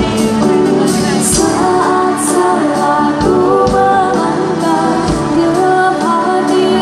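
A woman singing a sholawat melody live into a microphone, her held notes ornamented and wavering, over keyboard and drums played through a PA system.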